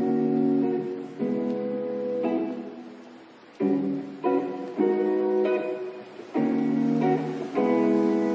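Background music: a run of chords, each struck suddenly and left to ring and fade, with a new chord about every second.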